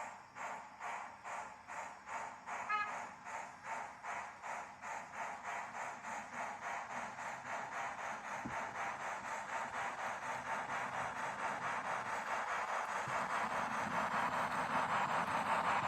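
Sound decoder of a Piko BR 83.10 model steam tank locomotive playing steam exhaust chuffs through its small speaker as the locomotive accelerates. The chuffs start at about two a second and quicken steadily into a fast beat while growing louder, with a brief short whistle-like squeal about three seconds in.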